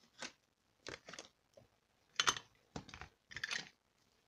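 Basketball trading cards being handled and slid against one another: a series of short, uneven clicks and rustles, the loudest a little over two seconds in.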